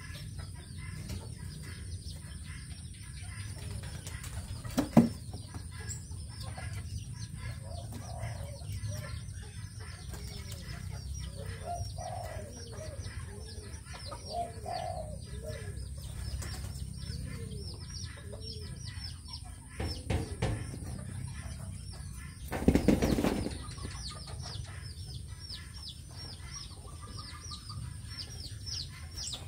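Brahma chickens clucking softly in their pen over a constant high chirping of small birds. A sharp knock comes about five seconds in, and a burst of wing flapping about a second long comes later on.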